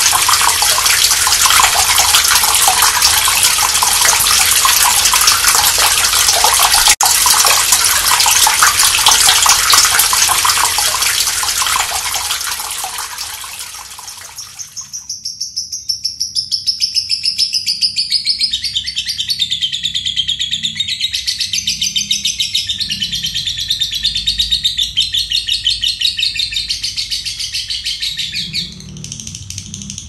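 Rushing water of a waterfall fades out over the first half. Then a lovebird gives its long 'ngekek' call, a rapid, continuous rattling trill lasting about thirteen seconds that stops shortly before the end.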